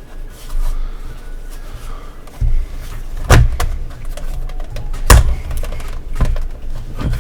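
Hard plastic pieces of a figure's display base being handled and pushed together, with low bumping and rubbing and two sharp plastic knocks about three and five seconds in, followed by smaller clicks.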